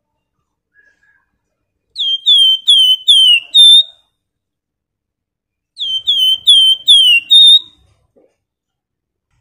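Javan fulvetta (flamboyan, wergan Jawa) singing two clear whistled phrases a couple of seconds apart. Each phrase is five quick notes, each note sliding down in pitch, ending on a higher, level note.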